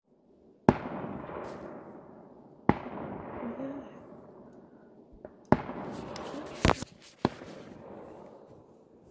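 A series of sharp bangs, several of them, some in quick pairs, each echoing and dying away over a second or more.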